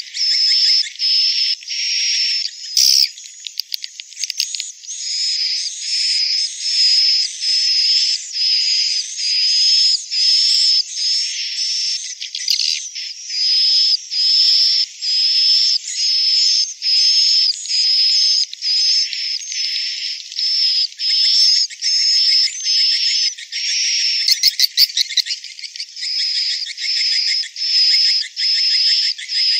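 Edible-nest swiftlet twittering: high-pitched chirps repeating a little more than once a second, with a brief rattling trill twice. This is the swiftlet call sound (suara panggil) that is played in swiftlet houses to lure birds in.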